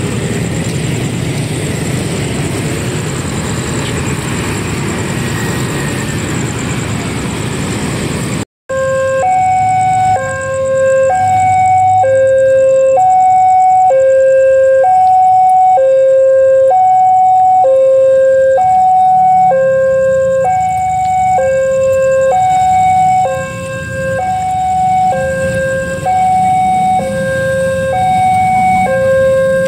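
A steady low rumble for the first several seconds. After a cut, a railway level-crossing warning alarm sounds a loud two-tone hi-lo signal, alternating high and low tones about half a second each, to warn that the crossing is closing for an approaching train.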